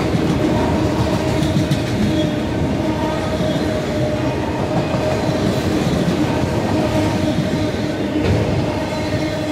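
Freight train of autorack cars rolling past close by: a steady rumble of steel wheels on the rail with a constant hum and a few light clicks from the wheels over the joints.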